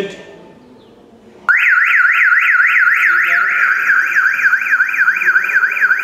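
Car alarm siren sounding a rapid up-and-down wail, about four sweeps a second. It starts suddenly about a second and a half in and cuts off abruptly near the end: the alarm system has been activated.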